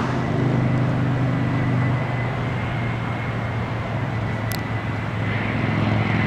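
Jet airliner engines running: a steady low drone with a thin high whine, swelling again near the end. A brief high chirp about four and a half seconds in.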